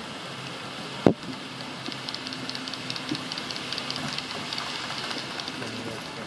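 HO-scale model freight train running past on the layout, its wheels giving a rapid run of light clicks over the track. A single sharp knock sounds about a second in.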